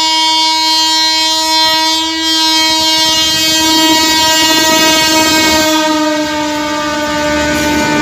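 WAP-4 electric locomotive's horn sounding in one long, unbroken blast as the train approaches and passes, its pitch dropping slightly about six seconds in as the engine goes by. The clatter of wheels and coaches on the rails grows from about three seconds in.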